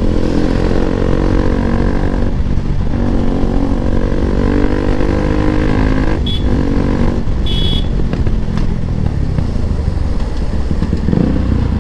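Bajaj Pulsar NS200's single-cylinder engine through a loud exhaust, running under way with its note wavering and dipping briefly a few times as the throttle changes. Two short high beeps come about six and seven and a half seconds in.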